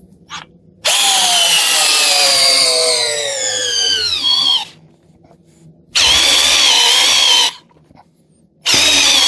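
Parkside PBSA 12 D4 12 V cordless drill driver driving a large screw in three runs. The first run lasts about four seconds, and its whine falls steadily in pitch as the motor slows under the growing load. It is followed by a shorter steady run and a final short run whose pitch drops near the end.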